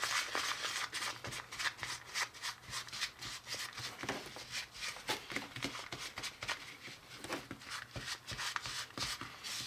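Fingers rubbing and pressing crumbly cookie-dough mix against the inside of a small plastic mixing bowl: an irregular run of soft, scratchy rustles and little clicks. The mix is still crumbly and has not yet come together into a dough.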